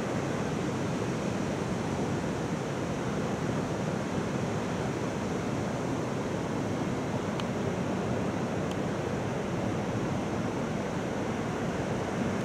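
Steady, even rushing noise of wind and water ambience, with two faint ticks about seven and nine seconds in.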